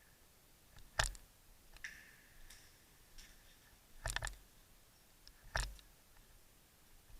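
A few sharp clicks over quiet: one about a second in, a quick triple about four seconds in, and another about five and a half seconds in.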